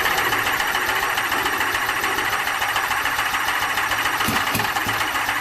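Laverda V6 prototype's 90-degree 995.5 cc V6 engine idling steadily, with a fast, even beat.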